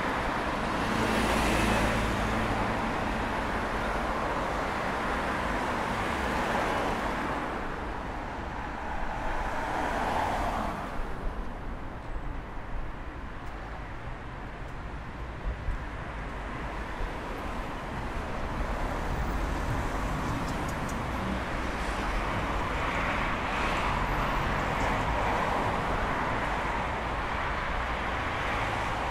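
City street traffic: cars driving past on the road, each one's engine and tyre noise swelling and fading as it goes by, several times over the stretch.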